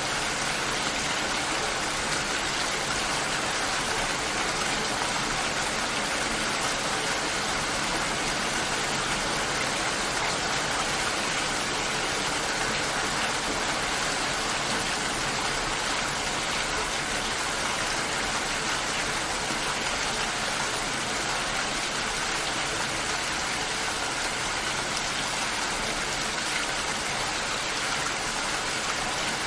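Steady, even rainfall: a continuous hiss of rain with no breaks or changes.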